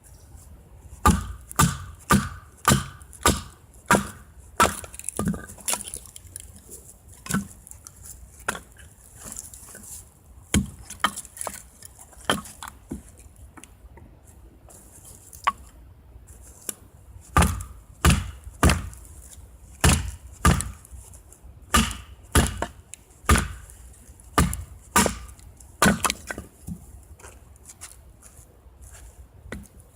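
Firewood being chopped: sharp chopping strikes on wood about two a second, one run from about a second in and a second, longer run starting near the middle, with lighter knocks in between.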